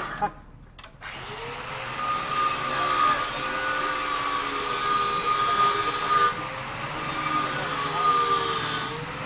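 Dongfeng diesel engine of a mini tractor running under load, starting about a second in, its pitch wavering a little as the engine speed rises and falls.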